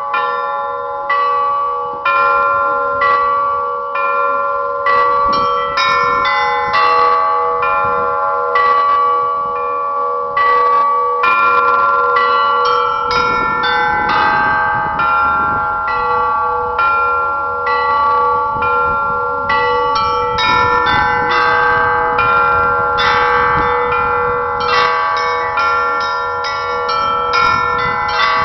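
A set of Russian church bells rung by hand in a continuous peal. Several bells of different pitches are struck in a quick, rhythmic pattern, and their tones ring on and overlap.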